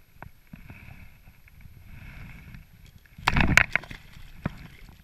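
Pike released into the lake: one short loud splash as it hits the water and thrashes away, about three seconds in, with a sharp knock soon after. Before it, faint water and handling sounds.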